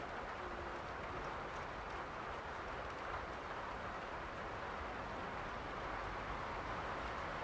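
Steady rain falling, an even hiss with no let-up, and a brief faint low tone about half a second in.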